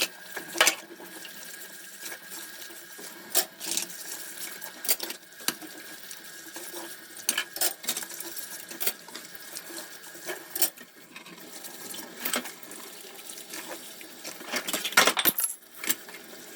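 Water running and splashing in a sink, with a dozen or so sharp clinks of dishes being handled at irregular intervals.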